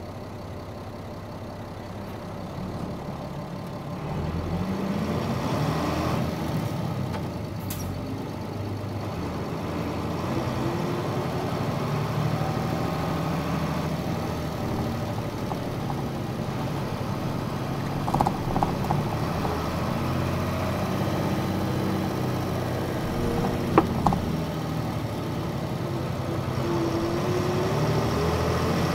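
Diesel engine of a Nissan Diesel Space Runner midi bus, heard from on board, idling and then pulling away about four seconds in, its pitch rising as it revs up through the gears. It then runs steadily and revs up again near the end, with a few short clicks in between.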